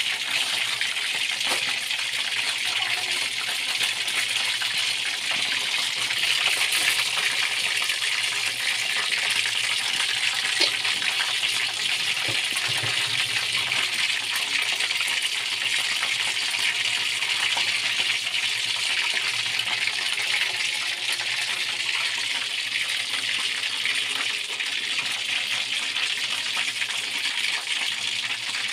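Chicken pieces deep-frying in a wok of hot oil: a steady sizzle with many small crackles and pops.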